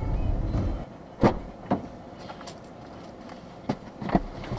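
Car cabin: driving road rumble that stops abruptly within the first second, then a handful of sharp clicks and knocks inside the parked car.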